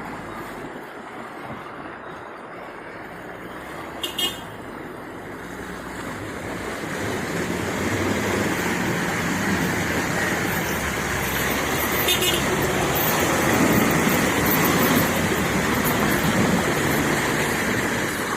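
4x4 pickup truck driving off-road, its engine and tyre noise building and growing louder over the middle of the stretch. Two short sharp sounds come about four and twelve seconds in.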